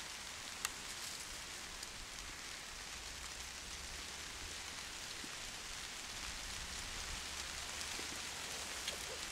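Steady hiss of light rain falling on woodland leaf litter, with one sharp click about two-thirds of a second in.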